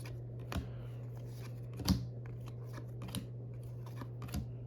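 Baseball trading cards being flipped through by hand, with a sharp card-snap click about once a second; the loudest comes about two seconds in. A steady low hum runs underneath.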